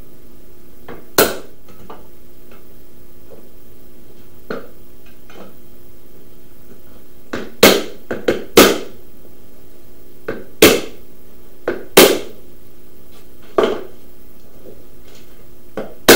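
Hammer blows on a hand tool held against a wooden door panel. There are single sharp knocks, one early on and then a run of them in the second half, where a light tap often comes just before a harder blow.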